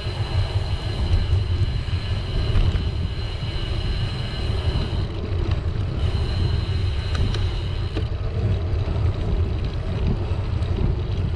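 Wind buffeting the microphone of a camera on a moving bicycle, a steady low rumble, with tyre noise from the paved path. A thin high whine runs through the first part and drops out for good about two-thirds of the way in.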